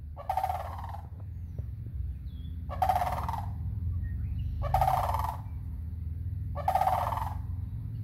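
Sandhill cranes giving their rolling, rattling calls: four calls of under a second each, about two seconds apart.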